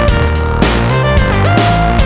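Electronic background music with a heavy bass line and a steady beat, its lead notes sliding between pitches.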